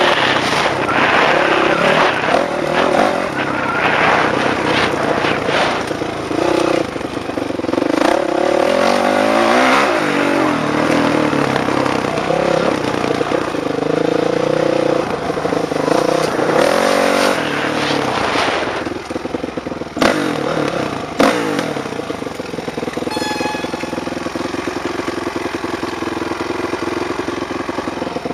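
Dirt bike engine revving up and down as the bike is ridden, its pitch rising and falling through the throttle and gear changes. Two sharp knocks come about two-thirds of the way through, after which the engine settles to a steadier, lower run like an idle.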